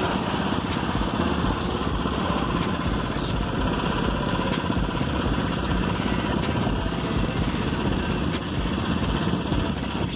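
Small engine of a motorized bicycle running steadily as it rides, with a fast, even buzz.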